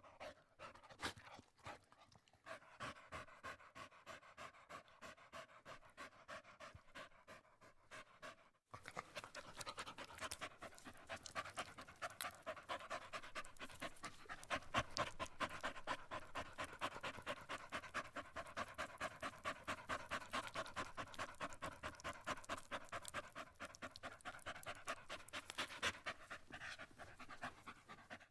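A dog panting, quick rhythmic breaths in and out. About nine seconds in there is a brief break, and then the panting comes louder and faster.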